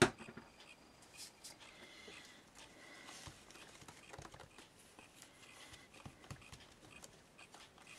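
A short, sharp click at the very start, then faint, scattered soft taps and paper rustles as an ink pad is pressed and dabbed onto a small piece of card lying on newspaper.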